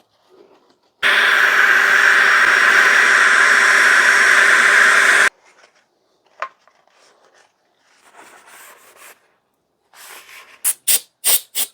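A loud, steady rush of air lasting about four seconds while the opened chainsaw's bar and sprocket area is cleaned out. Near the end comes a quick run of sharp, scratchy strokes, about four a second.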